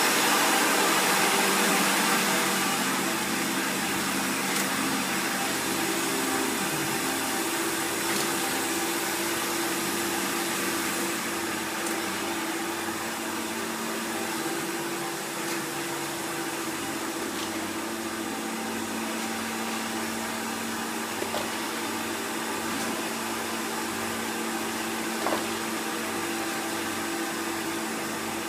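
Milkotek-Hommak yogurt bucket filling machine running: a steady mechanical whir with a low hum and a few faint clicks.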